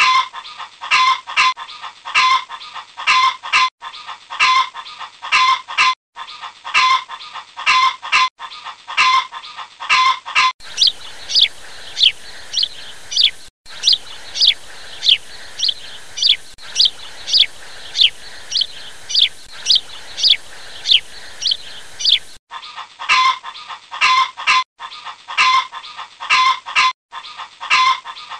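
Chickens clucking in a steady, repeating rhythm of short calls, about two a second, with a stretch of high, falling peeps in the middle.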